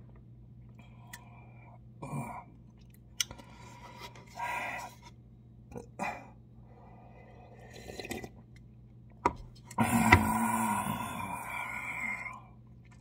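A person eating cup ramen: short chewing and slurping sounds, then a long, loud breathy stretch near the end as he drinks broth from the paper cup and exhales.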